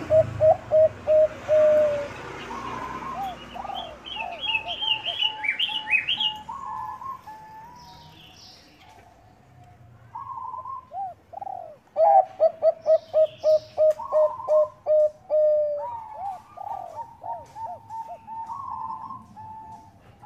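Zebra doves (Bangkok perkutut) cooing in fast trains of short staccato notes. One bout comes in the first two seconds and another about two-thirds through, with softer cooing between them. Higher chirps from a small bird come early on.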